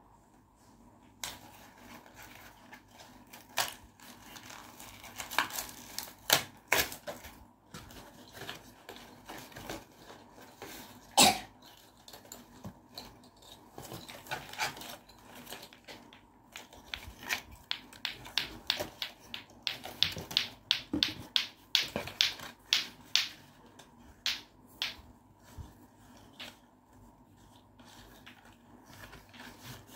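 A plastic toy and its packaging being handled and pulled apart by hand: irregular clicks, crinkles and sharp snaps. The clicks come thick and fast in the second half, and the loudest snap is about eleven seconds in.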